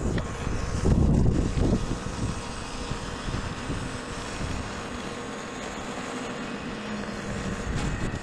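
Norwood Lumberlite ML26 portable bandsaw mill running under load, its blade sawing lengthwise through an ash log: a steady machine noise with a hum in it, briefly louder about a second in.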